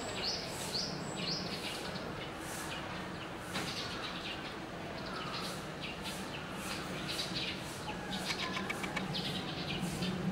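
Short high chirps repeated in quick runs, over a steady low murmur of distant voices.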